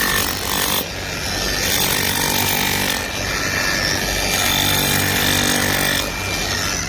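Concrete pump running hard, a loud engine-driven mechanical drone whose level dips briefly every few seconds.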